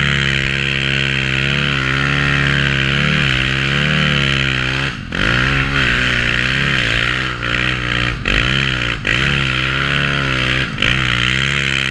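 Dirt-bike engine of a Yeti Snow MX snow bike revving up and down under load through deep snow, with the throttle chopped off briefly about four times, over a steady hiss.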